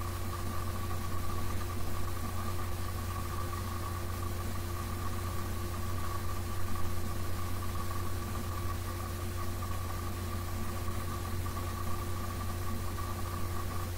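Portable inverter generator running with a steady engine hum at one even pitch.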